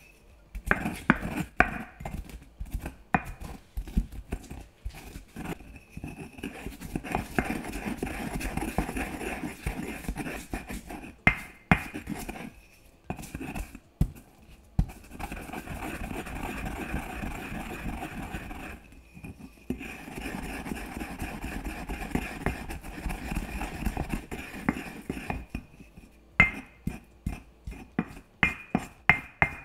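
Pestle working in a mortar: sharp taps and knocks for the first few seconds and again near the end, with long stretches of steady grinding in between.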